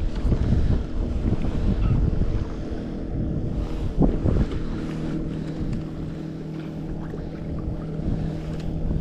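Wind buffeting the microphone in gusts, with a short knock about four seconds in.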